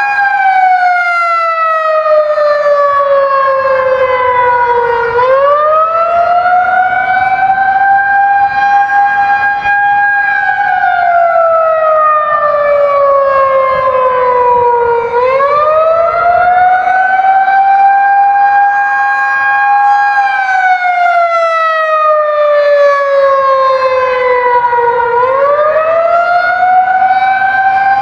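Outdoor warning siren sounding a wail: its pitch slides slowly down for about five seconds, sweeps quickly back up and holds briefly, repeating about every ten seconds.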